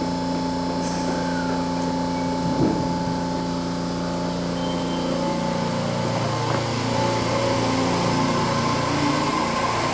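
JR Kyushu 815 series electric train humming steadily at the platform, then starting to pull away about six seconds in. Its motor whine begins to rise in pitch near the end as it picks up speed.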